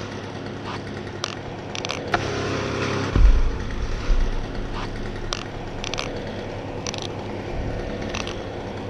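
A cut spruce trunk section thuds heavily onto the lawn about three seconds in, with a smaller thump a second later as it settles. Under it a chainsaw idles steadily, and a few short light clicks come and go.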